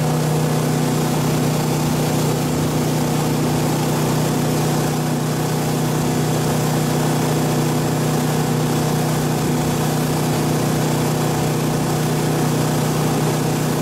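Motorboat engine running steadily at speed, a constant even drone under a rushing hiss of wind and water.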